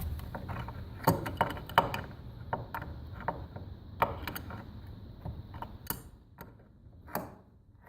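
Wrench working the nut on a lag bolt that secures a house to its foundation: irregular metallic clicks and knocks, a few a second, thinning out near the end.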